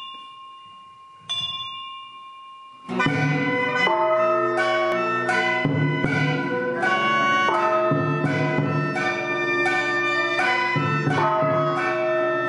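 A bell or chime struck twice, ringing and fading. About three seconds in, Taoist ritual music begins: an ensemble with a struck accent about once a second under sustained notes.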